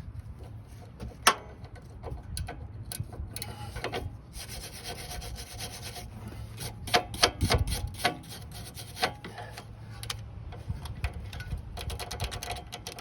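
A hand tool scraping rust out of the hex socket of a rusted, seized sway bar link stud: uneven metal scraping and rubbing with sharp clicks. The loudest click comes about a second in, and a cluster of clicks comes around seven to eight seconds.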